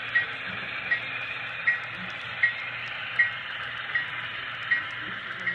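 Model freight train cars rolling past on the layout track, their wheels giving short metallic clicks in pairs about every three-quarters of a second over a steady rolling hiss.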